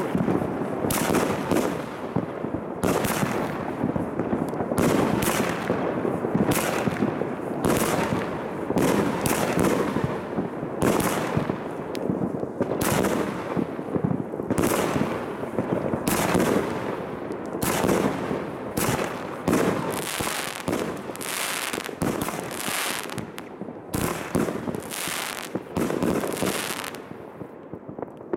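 Multi-shot consumer fireworks cake firing a long volley of launches and bursts, a little over one bang a second, the volley stopping shortly before the end.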